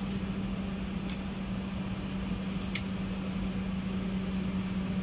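Steady cabin drone inside a taxiing Boeing 717: its two rear-mounted Rolls-Royce BR715 engines at low thrust and the cabin air supply, with a steady low hum. Two short high clicks, one about a second in and a sharper one near the middle.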